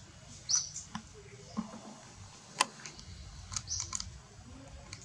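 Short high-pitched animal squeaks: one about half a second in and several in quick succession near the end, with a single sharp click or snap in the middle as the loudest sound, over faint rustling.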